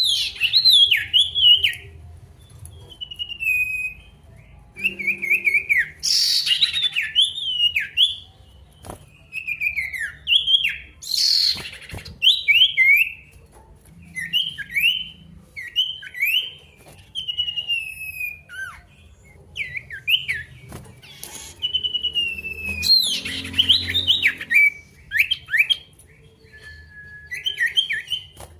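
Male sirtu songbird singing loudly, giving a steady run of short, clear whistled phrases, many sliding down in pitch, with a few harsh, raspy notes mixed in. This is the bird calling to challenge a rival.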